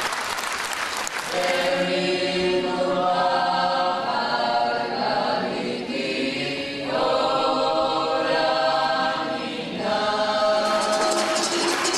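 Applause fading out, then a mixed choir of young men and women in Georgian folk dress singing together in harmony, in held phrases broken by short pauses. Clapping starts again near the end.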